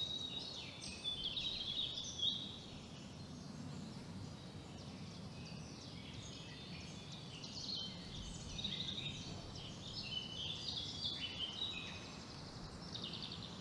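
Small birds chirping and singing over a steady low background rumble, an outdoor ambience bed.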